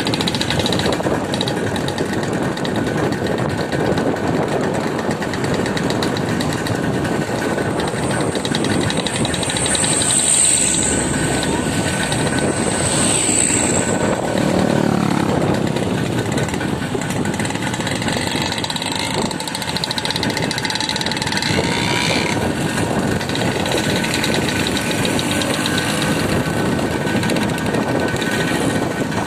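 A motor vehicle's engine running steadily under way, with continuous road noise and a faint high squeal now and then.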